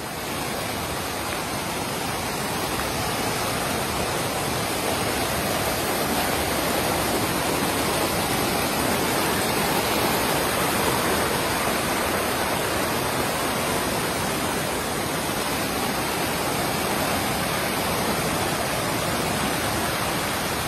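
Steady rush of a shallow, rocky river's water tumbling over stones below a waterfall, growing a little louder in the first few seconds and then holding even.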